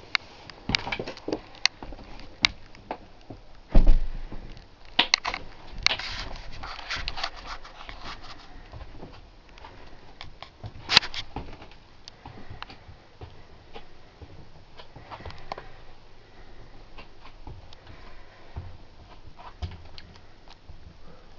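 Scattered clicks, knocks and rustling from a handheld camera being moved about in a small caravan interior, with a heavy thump about four seconds in and a sharp click about eleven seconds in.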